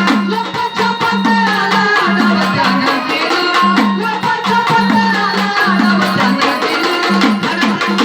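Traditional Marathi gondhal folk music: a sambal drum pair beating a fast, dense rhythm under a keyboard organ melody.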